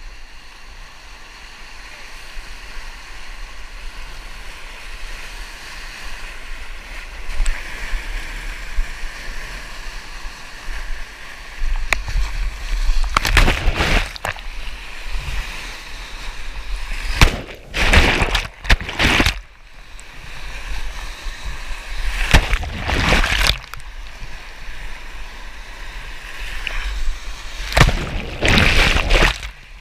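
Whitewater rushing in a river hole, heard from a camera mounted on a kayak. In the second half there are four loud crashes of water a few seconds apart, with gurgling, as the kayak cartwheels in the hole and the camera goes under the water.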